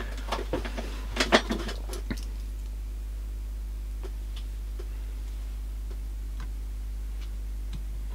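Light clicks and rattles from hands handling the plastic cassette-deck mechanism and its rubber belts in the first couple of seconds, the loudest a sharp click about a second in. After that, a steady low electrical mains hum with a few faint scattered ticks.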